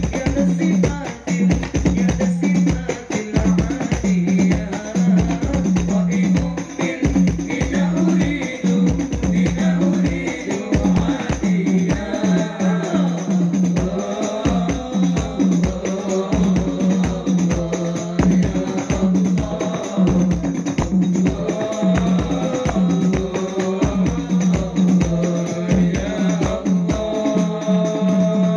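Darbuka (goblet drum) played with fast, dense hand strokes in a sholawat music ensemble, with singing and jingling percussion in the mix over a steady low tone.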